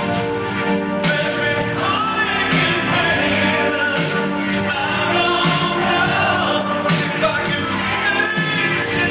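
Rock band playing a power ballad live: a lead singer over held chords and drums, heard from the audience in a concert hall through a phone's microphone.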